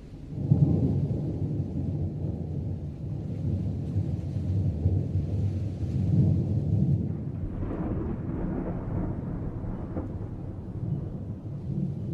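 Thunder: a sudden loud clap about half a second in, then a long deep rumble rolling on and swelling again later.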